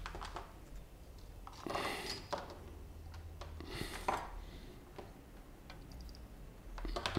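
Faint clicks and light clatter of small tools being handled on a workbench, with two short rustling swells, over a steady low electrical hum.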